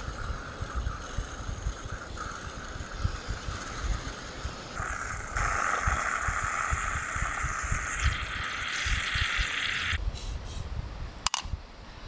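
Bialetti Brikka moka pot brewing on a camp stove: a steady hiss and sputter as coffee and steam push up into the open upper chamber, growing stronger about five seconds in and stopping abruptly about ten seconds in, then a sharp metallic click of the lid shutting. Wind rumbles on the microphone throughout, and the brewer reckons the wind kept the boiler from getting hot enough to build full pressure.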